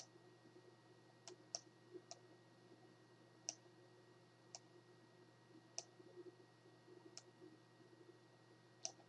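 Computer mouse clicking at irregular intervals, about nine short sharp clicks, over a faint steady hum.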